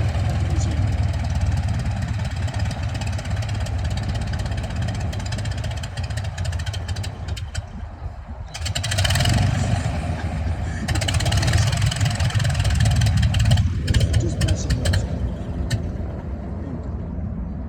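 Curtiss JN Jenny biplane's engine running as it taxis: a steady low rumble, with stretches of rushing noise laid over it about halfway through.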